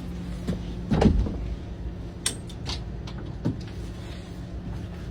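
A vehicle's engine idling with a steady low hum, with a handful of knocks and clicks over it, the loudest about a second in.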